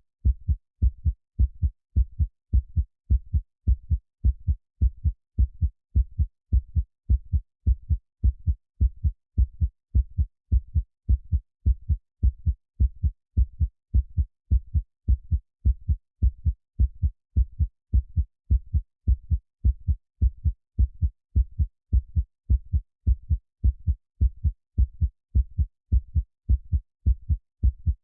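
Heartbeat sound playing in a steady, even rhythm of low, muffled double thumps, about one beat a second, with no hiss or other sound over it.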